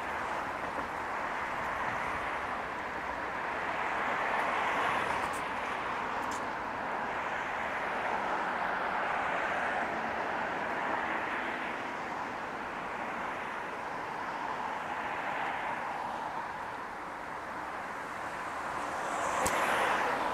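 City street traffic: cars passing one after another, their tyre and engine noise swelling and fading every few seconds. The loudest pass comes near the end, with a sharp click at its peak.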